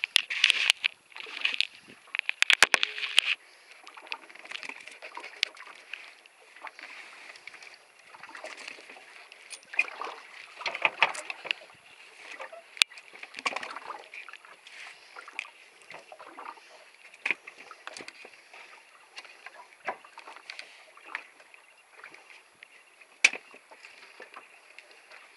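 Close handling noise on a small boat as a fish caught on a sabiki rig is taken in hand and unhooked: sharp clicks and knocks, busiest in the first few seconds, then scattered clicks and rustles over a steady hiss, with some water sloshing.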